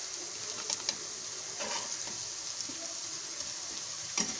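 Sliced onions and fried hilsa fish pieces sizzling steadily in hot mustard oil in a nonstick pan, with a few light clicks from a metal spatula against the pan.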